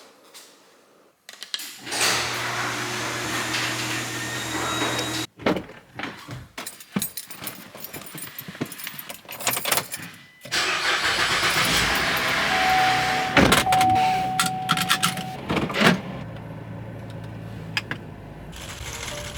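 A car running, in short cut-together stretches of engine and road noise with a steady low hum, with a stretch of keys jangling and clicking in between and a steady beep lasting about three seconds near the middle of the second stretch.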